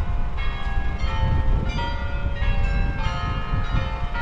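Tower bells ringing a run of struck notes, a new note about every half second with each one ringing on, over a steady low rumble.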